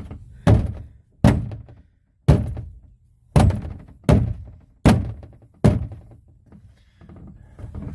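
Seven heavy thunks, about one a second, as a pipe is struck repeatedly to drive it through a tight rubber uniseal.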